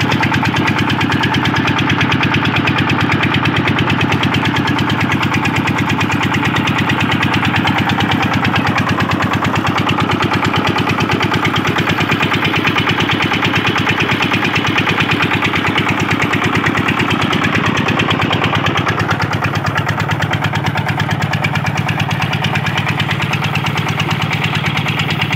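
A 25 HP Chief diesel engine running steadily under load, belt-driving a 7x6-inch water pump, with a rapid, even firing beat.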